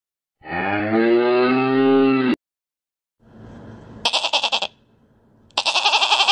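A bovine's long, low moo lasting about two seconds. After a pause come goat bleats: a short quavering bleat about four seconds in, and a longer one starting near the end.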